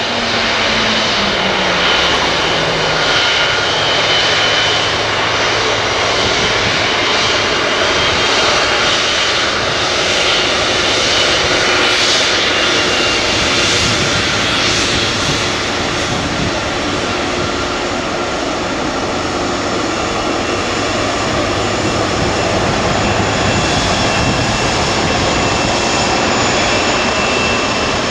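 Twin jet engines of a Japan Airlines Boeing 777 running at low thrust as it taxis on the runway: a steady rush with high, even whining tones.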